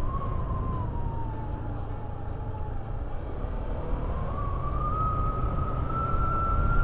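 Motorcycle under way, with steady wind rumble on the microphone and a single whine from the bike. The whine sags a little in pitch, then climbs steadily through the second half.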